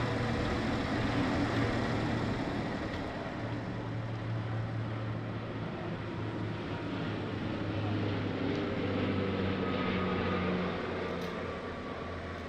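Steady low hum over a constant background rumble, with no distinct events.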